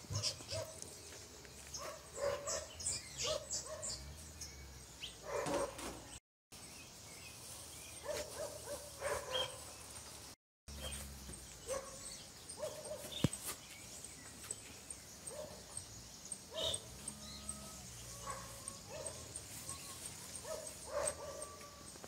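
Quiet outdoor ambience with scattered short animal calls, including barks and chirps, and a faint high ticking about twice a second in the second half. The sound cuts out to silence twice for a moment.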